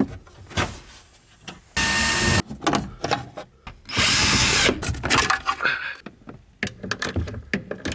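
A handheld power tool, drill-type, run in two short bursts about two seconds apart, each under a second long, as the rear seat belt fasteners on the other side are taken out. Clicks and knocks of handling parts and tools come between them.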